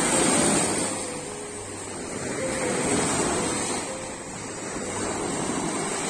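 Caspian Sea surf breaking and washing up a sandy beach, swelling and ebbing about every three seconds, with a fainter melody underneath.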